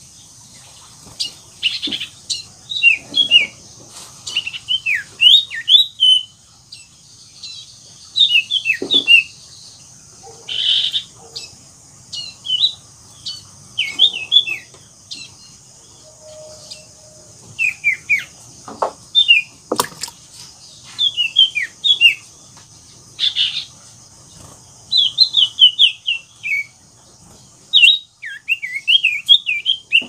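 Common iora (cipoh) singing in full, lively song: clusters of quick, sharp downward-sliding notes, a new burst every second or two.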